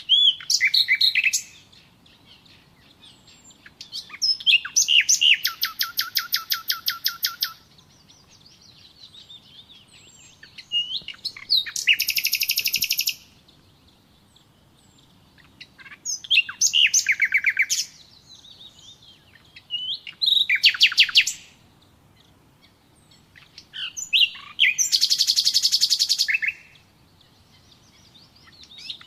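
A songbird singing a repeated song phrase about every four seconds. Each phrase is a few quick notes followed by a rapid trill of repeated notes, with faint, quieter chirps in between.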